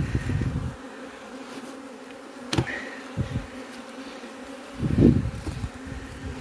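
Honeybees buzzing steadily around opened hive boxes, with a few handling knocks and bumps: a sharp knock about two and a half seconds in and a louder thump about five seconds in.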